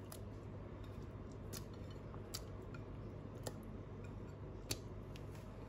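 Quiet cooking sounds from a pot of steaming broth as prawns go in: a low steady hum with about five short, sharp clicks, roughly one a second.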